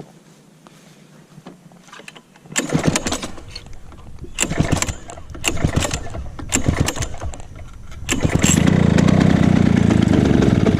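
Lawn-Boy M Series mower's two-stroke engine being pull-started: several yanks of the recoil starter, then the engine catches about eight seconds in and runs loudly and steadily. The mower is hard starting.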